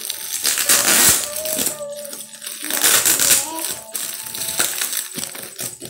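Plastic packing film crinkling and crackling as it is pulled and torn off a cardboard-wrapped package by hand, loudest about a second in and again around three seconds in.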